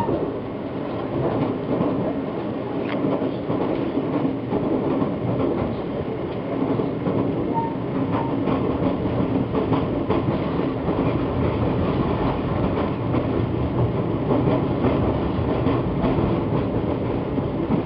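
Steady rumble of an Amtrak Adirondack passenger train rolling at speed, heard from inside the car, with occasional faint wheel clicks as it crosses a steel truss bridge.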